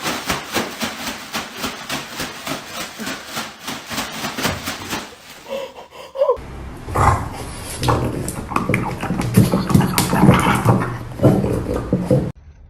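Animal sounds in two parts: first a quick, regular pulsing sound, then, after an abrupt change about six seconds in, louder and lower animal noises that cut off suddenly near the end.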